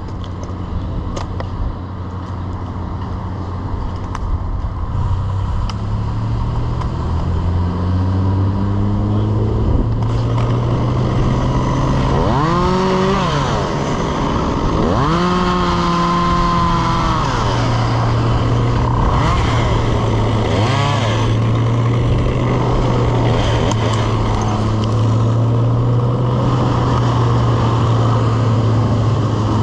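An engine running steadily, its pitch rising about a quarter of the way in as it speeds up, then holding there. Over it, a person gives two long drawn-out shouts in the middle.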